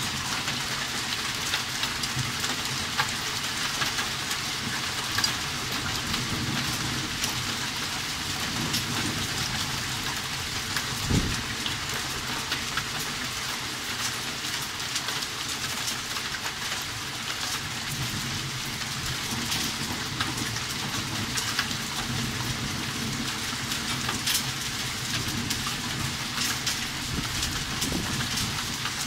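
Hailstorm: heavy rain mixed with hail pelting a garden, a steady dense hiss full of sharp ticks of single stones striking. There is one louder knock about eleven seconds in.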